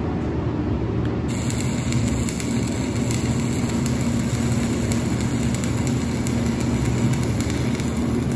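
Shielded metal arc (stick) welding with a 1/8-inch Brutus A electrode at about 100 amps: the arc is struck about a second in and then crackles steadily as the bead is run.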